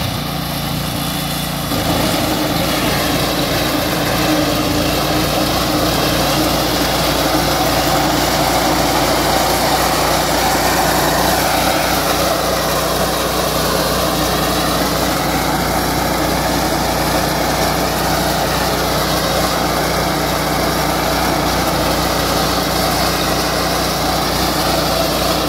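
Small engine of a walk-behind two-wheel power reaper running steadily under load as the machine cuts tall fodder grass. It gets louder about two seconds in, then holds an even note.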